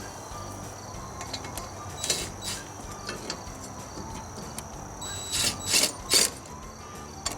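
Metal parts and hand tools worked on a lawn mower's blade mount while the blades are refitted: light clicks throughout, with short rasping bursts about two seconds in and three louder ones around five to six seconds in.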